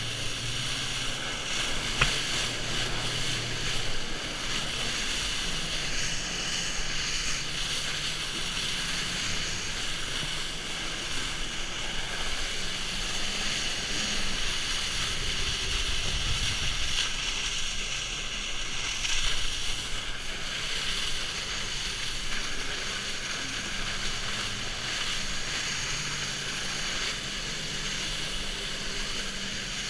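Steady rush of a flyboard's water jets and wind on the microphone, with a low hum from the jet ski engine that pumps water up its hose.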